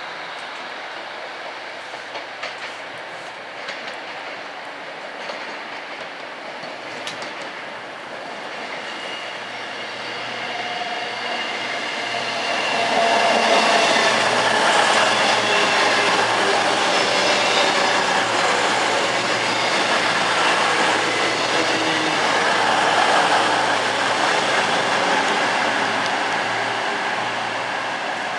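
A train passing at a station platform: it builds over about ten seconds to a loud, steady running sound with a few thin ringing tones over it, then eases off slightly near the end.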